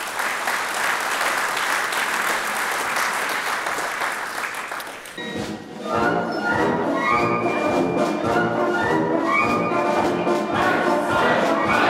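Audience applause, then about five seconds in a wind orchestra starts playing and carries on.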